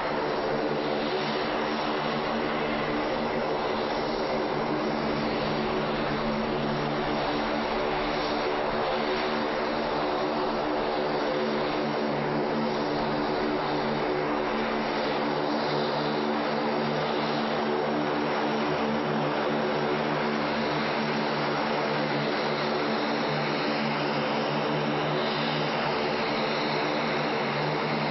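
Twin-engine turboprop airplane taxiing, its engines and propellers running in a steady drone of several even tones over a hiss.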